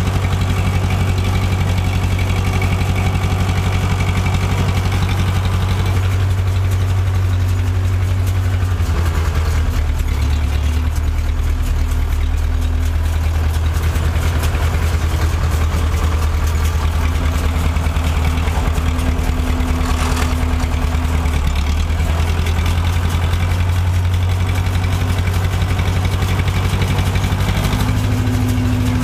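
Farm tractor engine running steadily while it drives a round baler that is forming a bale. The engine note drops about nine seconds in and rises again near the end, with one faint short knock about twenty seconds in.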